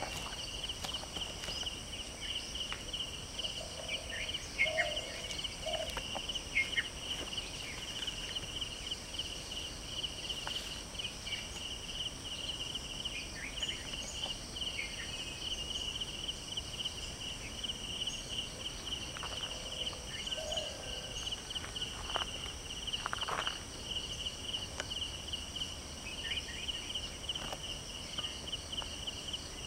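Steady, fast-pulsing trill of an insect chorus, with scattered short snaps and rustles, a few of them louder, about 5 seconds in and again around 20 to 23 seconds in.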